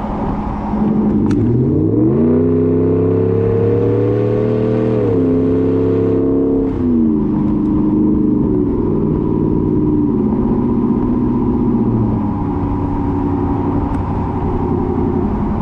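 Ram 1500's 5.7 Hemi V8 through a Borla S-Type aftermarket exhaust, revving up: the engine note climbs about two seconds in, holds, then drops back down in several steps.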